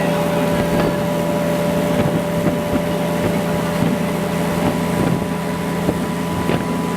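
Steady running noise inside a moving passenger train, a constant hum with irregular knocks and rattles from the carriage.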